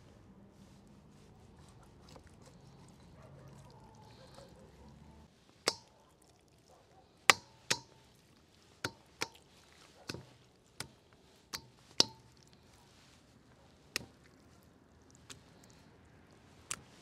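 A knife knocking on a wooden cutting board as food is cut: about a dozen sharp, irregularly spaced knocks, beginning about a third of the way in.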